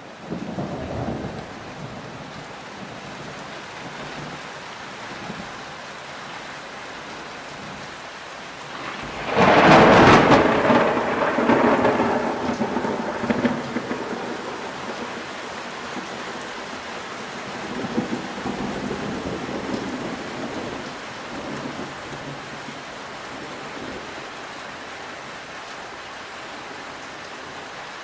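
Steady rain falling in a thunderstorm. About nine seconds in, a loud clap of thunder rumbles on and fades away over several seconds, with fainter rolls of thunder near the start and again later.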